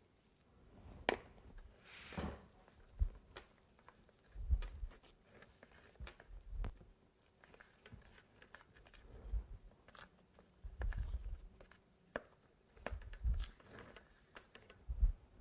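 Metal spatula spreading and scraping icing over a carved layer cake for a crumb coat: soft scrapes with scattered clicks and dull low thumps every second or two.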